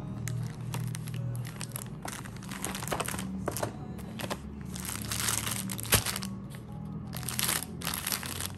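Plastic wrappers of chocolate-bar multipacks crinkling in irregular bursts as they are handled and laid down, with a sharp knock about six seconds in, over background music.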